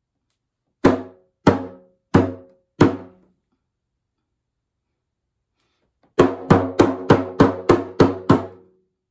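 Hand drum struck with the hand: four evenly spaced beats about two-thirds of a second apart, then after a pause of about three seconds, eight quicker beats at roughly three a second. Each stroke rings briefly with a clear drum pitch.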